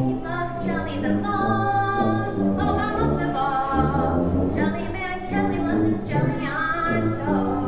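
A choir of preschool children singing a song together, accompanied by tuba and guitar, with the tuba holding low bass notes under the voices.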